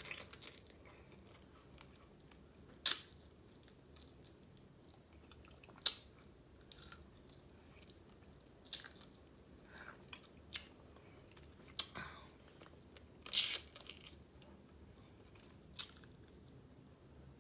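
Close-up eating sounds of snow crab legs being eaten: chewing and sucking out the meat, with short sharp smacks and crunches every few seconds, the loudest about three seconds in.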